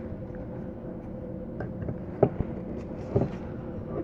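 Light handling sounds of a glass tea tumbler with a bamboo lid: a few small ticks and two soft knocks, about two and three seconds in, over a steady faint hum.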